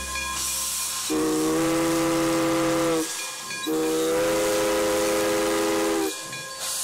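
Steam locomotive whistle sounding two long blasts, each a chord of several notes held steady. Steam hisses loudly from the engine between and under the blasts.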